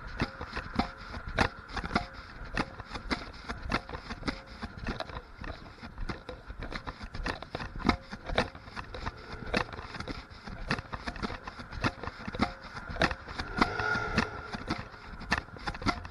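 Typhoon wind and rain: a steady noisy rush with many irregular sharp taps, like raindrops striking close to the microphone, swelling louder near the end.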